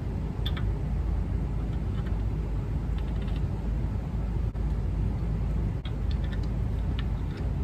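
A steady low rumble of background noise, with a few faint light clicks of small metal gearbox parts (shift forks on their guide bar) being handled.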